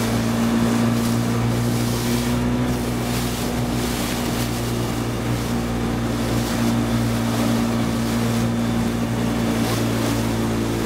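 A boat's engine running steadily with a constant low hum, under a rush of wind and water.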